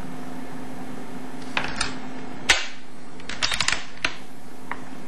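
A few sharp clicks and a short clatter of small hard parts being handled on a shotgun receiver, the loudest click about halfway through and a quick run of clicks just after, over a steady low hum.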